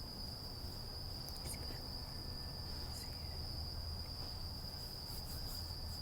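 A steady high-pitched tone over a low hum, with a few faint clicks.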